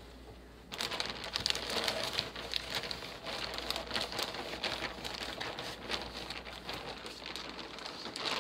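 Crinkling of a large plastic zip-top bag holding kale and paper towel as it is handled and pressed closed, a dense run of fine crackles starting about a second in.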